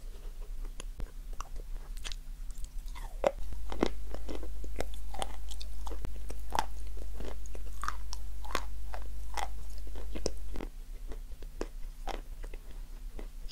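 Close-miked biting and chewing of crunchy dried marshmallow, with many sharp crackles as it breaks between the teeth. Underneath runs a steady low hum that swells louder from about three seconds in until near the end.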